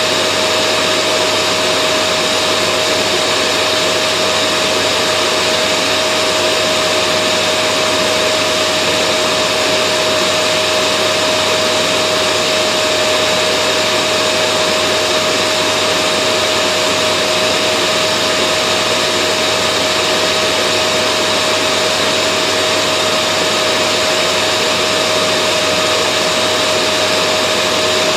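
Vacuum cleaner running steadily: an even rushing whir with a constant whine in it, unchanging throughout.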